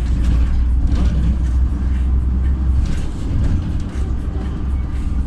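Inside a LiAZ 5292.67 city bus under way: its YaMZ-53624 compressed-natural-gas engine and drivetrain running with a steady low drone, which eases off briefly about three to four seconds in.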